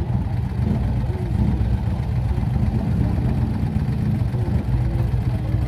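Vintage British motorcycle engine running at idle, a steady low beat from its firing pulses.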